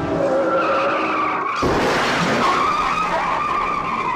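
1964 Chevrolet Impala lowrider peeling out, its tires squealing in long wavering tones, with a louder rush of noise joining about a second and a half in.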